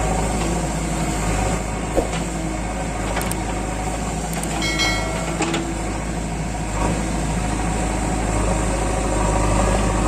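JCB 3DX backhoe loader's diesel engine running steadily, with a sharp knock about two seconds in and a brief high tone near the middle.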